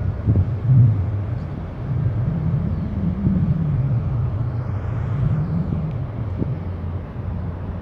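Low, steady, slowly wavering rumble of a Capesize bulk carrier's engine as the ship steams slowly past close by.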